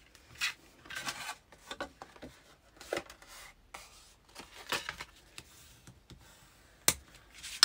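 Bone folder rubbing and scraping along the score lines of cardstock in short strokes, re-creasing the folds, with the stiff card rustling as it is turned and a sharp tap near the end.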